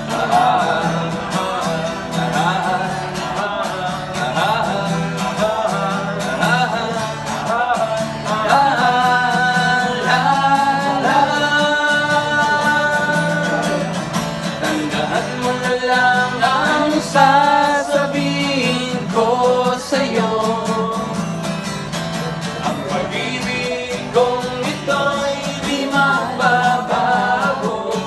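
A man singing with an acoustic guitar, holding long notes around the middle of the song.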